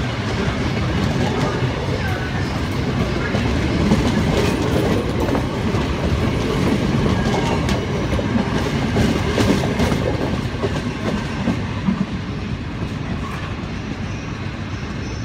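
Queensland Rail stainless-steel electric suburban train rolling past close by, wheels clicking over the rail joints. It grows quieter over the last few seconds as it pulls away.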